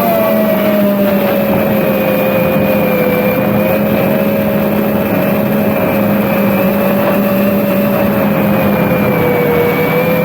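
FPV quadcopter's electric motors and propellers whining steadily in flight, the pitch wavering slightly with throttle, over a rushing noise.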